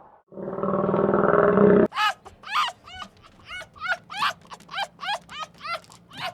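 A deep animal roar that cuts off suddenly, followed by a puppy yelping and whimpering in quick, short, high cries, about three a second.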